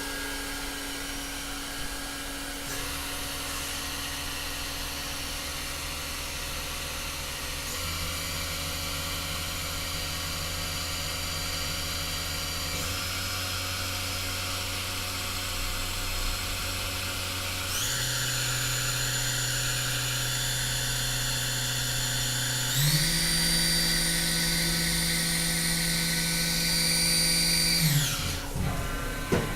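Haas VF-1D's 10,000 RPM direct-drive spindle running, stepped up in speed several times about five seconds apart, each step raising the pitch of its whine. Near the end it winds down quickly and stops.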